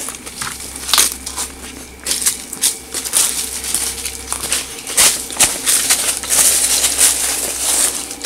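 Footsteps crunching through dry leaves and undergrowth: a few scattered crackles, then from about two seconds in a dense run of crackling steps.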